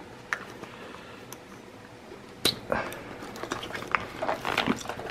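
Hands handling a roll-top pouch with a plastic buckle: a few sharp plastic clicks, the loudest about two and a half seconds in, and soft rustling of the bag's fabric near the end.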